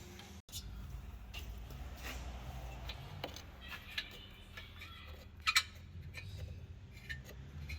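Scattered light metallic clicks and taps of exhaust parts and fittings being handled and worked loose by hand, with a sharp double click about five and a half seconds in, over a low steady hum.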